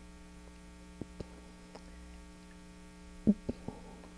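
Steady low electrical mains hum in the recording, with a couple of faint clicks about a second in and a brief soft vocal murmur near the end.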